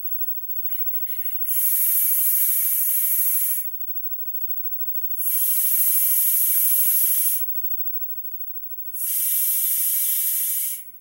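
Three long hissing draws on a sub-ohm vape, a dual-coil rebuildable dripper on a box mod fired at about 0.5 ohm, each lasting about two seconds with short pauses between.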